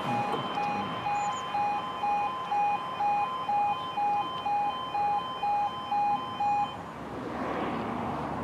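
Level crossing warning alarm sounding in a steady two-tone pattern, about two pulses a second, while the barriers lower; it cuts off about seven seconds in. A rising rushing noise follows near the end.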